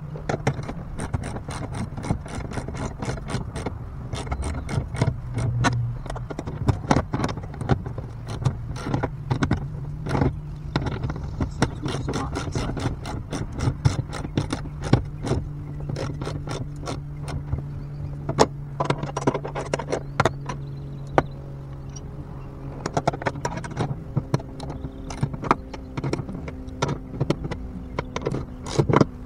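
Socket ratchet clicking in quick runs as the bolts of a steering mounting bracket are tightened into a fibreglass boat console, with a steady low hum underneath.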